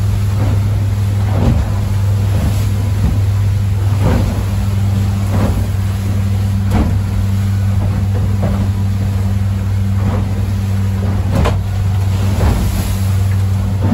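Small motorboat's engine droning steadily, heard from inside the cabin, as the hull pounds into choppy waves. A sharp slam with a splash of spray against the windshield comes about every second or so.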